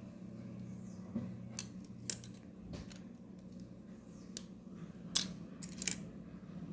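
Plastic Lego pieces clicking and knocking as they are handled and pressed together: about seven sharp, separate clicks, the loudest near the end.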